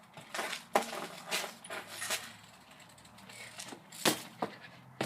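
BMX bike clicking and rattling, a run of irregular sharp ratchet-like clicks from its freshly tightened drivetrain and parts as it is tried out.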